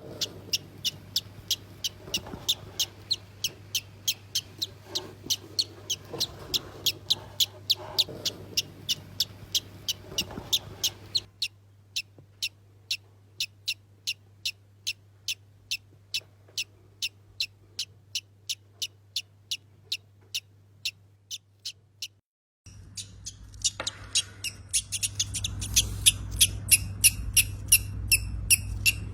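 Baby parrot chick peeping over and over, short high-pitched peeps at an even pace of about two to three a second. After a brief break about 22 seconds in, it gives denser, harsher squeaks.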